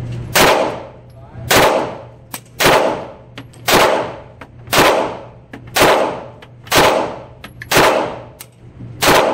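Glock 48 9mm pistol fired nine times at a steady pace of about one shot a second, each shot followed by a short echo off the walls of an indoor range.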